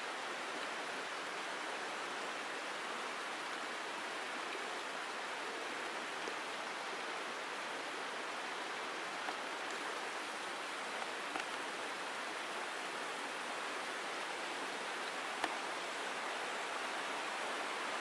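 A small, partly frozen forest stream flowing and trickling over rocks and ice, a steady rushing babble. A few brief ticks stand out, the sharpest about three-quarters of the way through.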